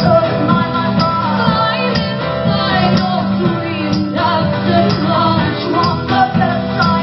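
Live folk-rock song: strummed guitars on a steady beat with a woman singing.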